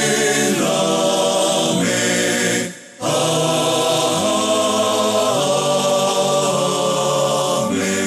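Closing music: a choir singing long held chords that move to a new chord every second or two, with a short break about three seconds in.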